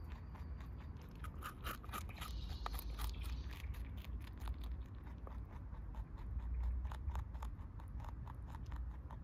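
Lop-eared rabbit munching lettuce and vegetables: a rapid run of small crisp crunches, several a second.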